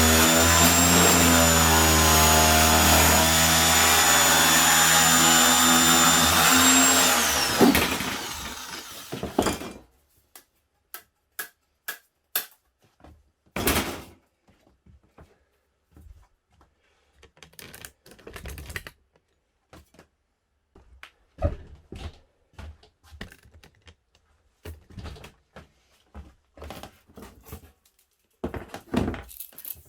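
An electric power tool's motor running steadily, then switched off and winding down about eight seconds in. Scattered light clicks and knocks follow as parts are handled.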